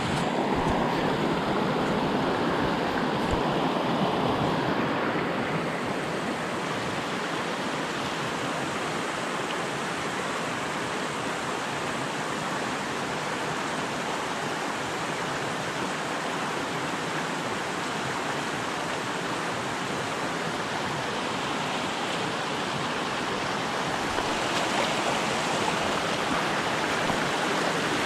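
Shallow, rocky creek rushing over stones in a steady wash of water.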